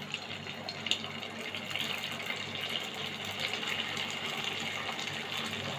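Paneer momos deep-frying in hot oil in a kadhai: a steady sizzle that grows a little stronger about two seconds in.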